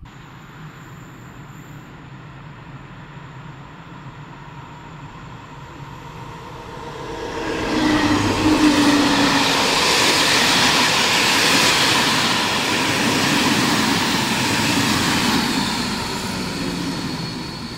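A passenger train of red-and-cream coaches on an electrified line passing close by. The rumble builds from about six seconds in as the train arrives, stays loud as the coaches run past with the rumble and clatter of wheels on rails, and eases off near the end.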